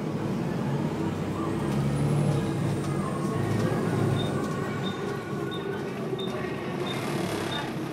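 Diesel engine of a double-decker bus running as it moves, heard from the back of the lower deck. Its low drone swells about two seconds in and again at about four. A light tick about one and a half times a second comes in partway through.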